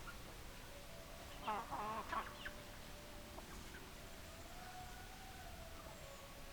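Chickens clucking, with a short cluster of louder calls about one and a half seconds in.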